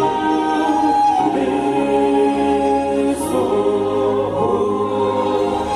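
Christian vocal group singing a slow worship song in harmony, holding long sustained notes between sung phrases.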